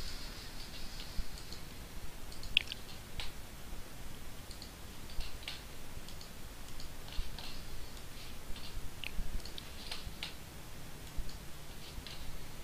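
Computer mouse clicking: scattered short, sharp clicks at irregular intervals.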